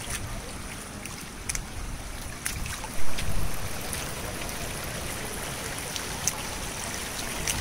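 Shallow stream of water running over rocks, under a steady low rumble, with one loud low thump about three seconds in.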